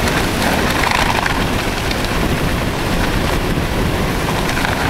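Hurricane-force wind blasting the microphone: a loud, steady rushing noise with a deep, buffeting rumble.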